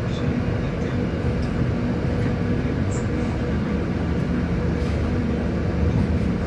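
City bus running, heard from inside the cabin as it moves slowly in traffic: a steady low engine and drivetrain hum with a few faint ticks and rattles.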